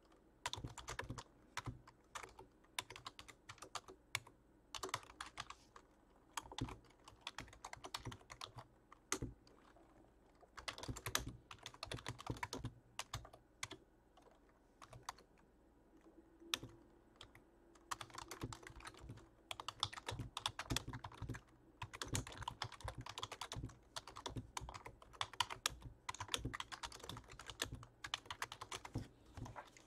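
Typing on a computer keyboard: runs of quick keystrokes with brief pauses between them.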